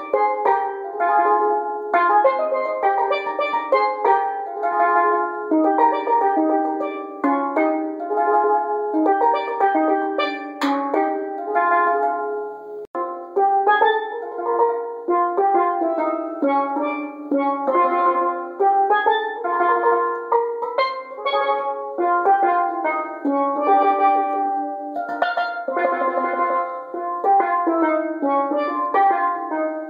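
Vistapan tenor steel pan played with a pair of mallets: a fast, continuous melody of quick ringing notes, with a momentary drop-out about thirteen seconds in.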